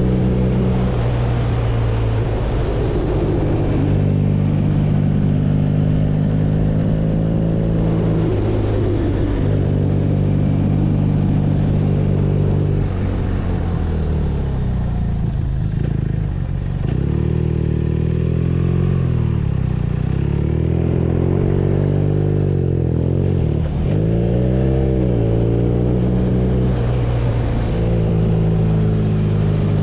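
BMW R nineT's 1170 cc air/oil-cooled boxer twin running while riding. It holds a steady engine speed through the first half. Through the middle and later part the pitch repeatedly drops and climbs as the engine slows and picks up again, then it settles back to a steady pitch near the end.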